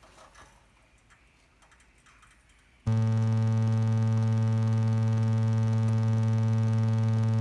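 Near quiet with a few faint clicks, then about three seconds in a loud, steady electrical hum with a low buzzing tone switches on abruptly and holds without change.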